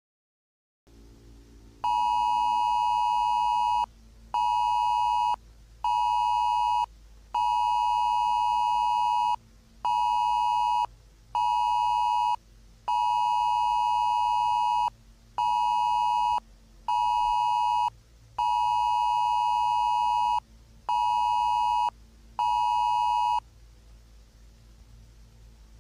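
Emergency broadcast alert tone: a loud, steady electronic beep sounding in a pattern of one long beep and two short ones, four times over, then stopping. A low steady hum runs underneath.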